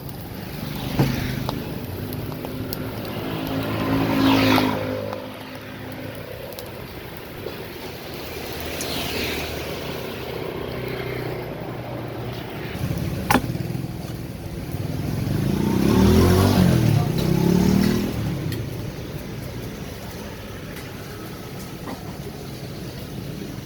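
Street traffic: motor vehicles passing close by, their engine sound swelling and fading. The loudest passes come about four seconds in and around sixteen seconds in. There are a couple of sharp clicks, one near the start and one about thirteen seconds in.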